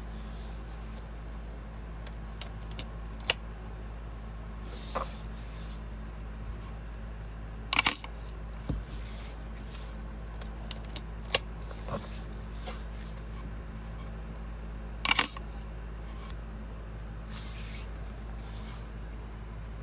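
Pentax K1000 35mm SLR being worked by hand: sharp mechanical shutter-and-mirror clicks, the two loudest about 8 and 15 seconds in, among quieter clicks and short rustles of the film advance lever being wound and the body being handled.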